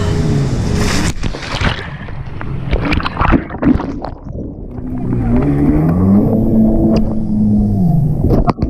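Parasail dip into the sea: wind buffeting the action camera, then about a second in the camera plunges underwater into muffled splashing and bubbling. From about five seconds a steady motorboat engine drone comes up, dropping in pitch near the end.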